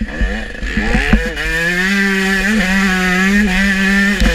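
Motocross bike engine under way: it revs up over the first second or so, holds a steady high pitch, then drops and fluctuates as the throttle is eased near the end. A single sharp knock about a second in.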